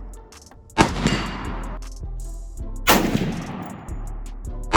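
Gunshots: two loud shots about two seconds apart, with a third, weaker shot near the end, each followed by a long fading echo.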